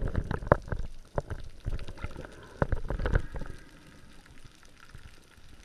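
Water splashing and gurgling, with irregular sharp splashes through the first three seconds, then quieter.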